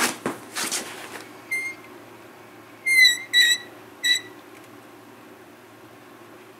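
Four short high-pitched beeps: a faint one about a second and a half in, then three loud ones in quick succession around three to four seconds in. A few soft clicks and rustles sound in the first second.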